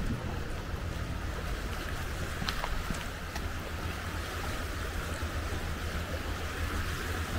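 Seaside ambience: a steady low rumble of wind on the microphone over a wash of water, with a few faint clicks around the middle.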